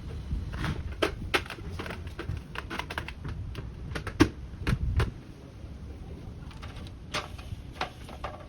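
Irregular sharp clicks and knocks from hands handling cable and tools, coming thick and fast in the first five seconds and only now and then after that.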